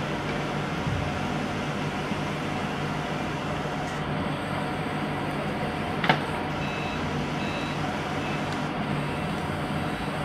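Steady outdoor background noise with a low hum. About six seconds in there is a single sharp knock, followed by a few faint short beeps.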